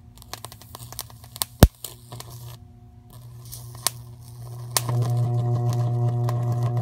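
High-voltage microwave oven transformer humming while its electrode sparks at a grape stem: scattered crackling with one loud snap about a second and a half in, then from about five seconds in a loud, steady buzzing arc as the stem burns.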